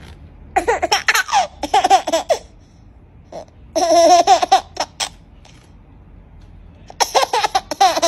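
A baby laughing in three short bouts of quick, breathy giggles, about half a second in, around four seconds in and near the end.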